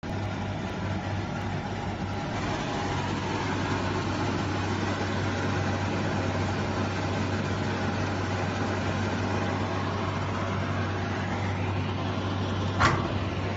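SLA resin 3D printer running: a steady machine hum and fan noise with a strong low drone. One sharp click comes about a second before the end.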